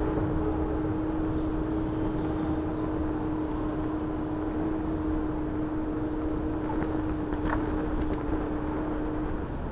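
Electric scooter ride through city streets: a steady low rumble of wheels and air noise, with a flat steady hum that stops near the end and a few light clicks shortly before.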